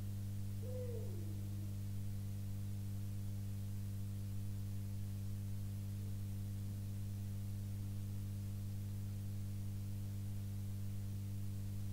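Steady electrical hum from the sound system, a low drone with a stack of evenly spaced overtones that holds unchanged. A faint, brief falling tone is heard about a second in.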